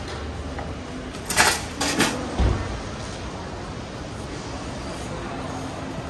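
Thin steel skewers clinking and clattering against each other, twice in quick succession about a second and a half in, followed by a low thump; steady background hum throughout.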